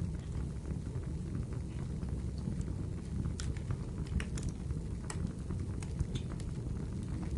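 Wood fire crackling in a fireplace: a steady low rumble of the flames with scattered sharp pops and snaps, a cluster of them a little past the middle.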